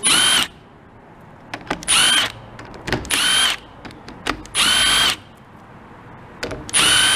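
Milwaukee cordless power driver spinning bolts out of an aluminium AB60E automatic-transmission valve body in five short runs of about half a second each. Each run is a motor whine that rises as it starts and drops as it stops, with faint clicks of handling in the pauses.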